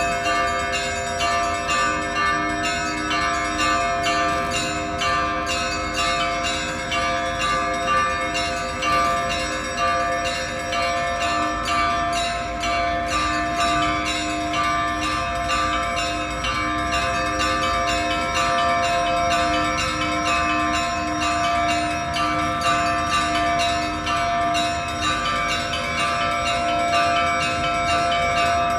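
Orthodox church bells ringing continuously: many bells struck in quick succession, their ringing tones overlapping and sustained.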